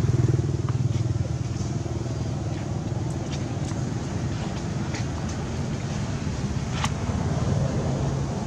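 A motor vehicle engine running steadily nearby, loudest at first and then easing off a little. A few brief, high chirps sound over it.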